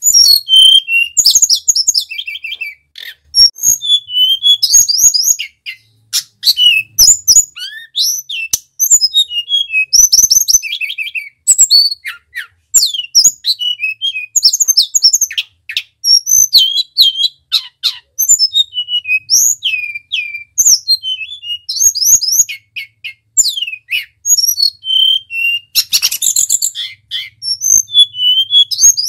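A caged hill blue flycatcher (tledekan) singing continuously in rapid, varied whistled phrases of quick rising and falling notes, with short sharp clicks between the phrases.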